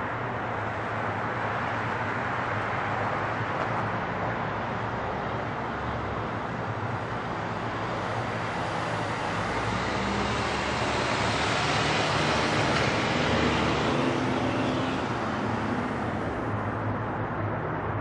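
Boeing 767 on final approach, its two jet engines giving a steady rushing roar with a higher whine that grows louder as it nears, peaking about three-quarters of the way through; the higher part then falls away near the end.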